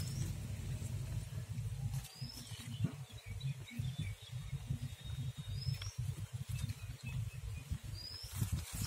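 Charred, dried banana-leaf wrapping rustling and crackling as hands peel it off a clay-baked whole chicken (mandoori chicken). Under it is a low, uneven rumble of wind on the microphone, and three short rising bird chirps come through.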